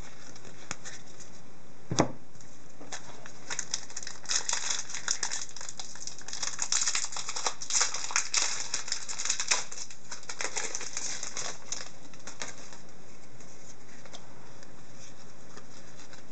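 Trading cards and a foil card-pack wrapper being handled: one sharp click about two seconds in, then a dense run of crinkling and card-flicking from about four seconds in, fading out about twelve seconds in.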